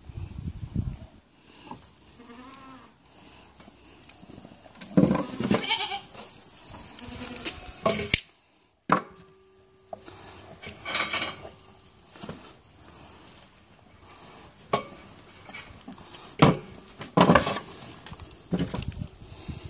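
A goat bleating several times, in separate calls, while its cloven hooves are being trimmed, with small clicks and scrapes from the trimming knife between the calls.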